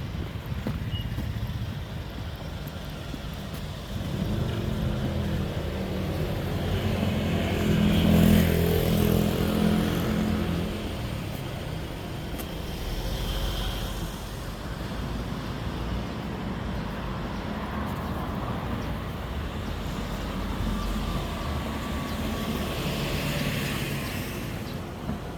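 Street traffic: a motor vehicle's engine passes close, swelling to its loudest about eight seconds in and fading, over a steady rumble of road noise.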